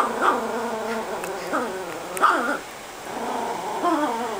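A chihuahua growling in long growls that rise and fall in pitch, sounding like a motorcycle, in two spells with a short break about two and a half seconds in. It is guarding the bone it is chewing, warning off a hand that pets it.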